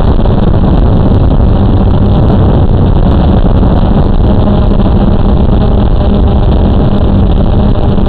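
Blade 350QX2 quadcopter's four electric motors and propellers running steadily while it hovers, heard as a loud, even buzz with a constant hum, picked up by the camera riding on the drone itself.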